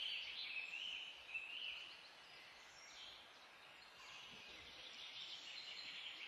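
Hand-held hair dryer blowing on a freshly painted bottle to dry the crackle paint fast, heard faintly as a wavering high hiss, a little stronger in the first two seconds.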